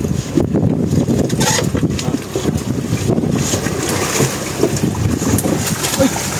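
Wind buffeting the microphone over the wash of the sea against the boat, with water splashing at the hull as a hooked fish is brought up alongside.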